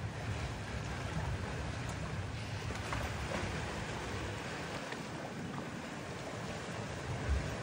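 Wind and sea waves washing at the shore, a steady rush with low wind rumble on the microphone. There is a brief low thump near the end.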